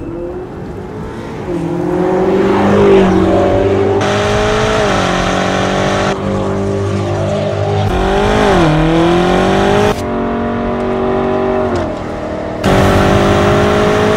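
BMW M8 Competition's twin-turbo V8 running through an Akrapovič exhaust under hard acceleration. The engine note climbs and drops twice as it changes gear, and the sound changes abruptly several times between clips.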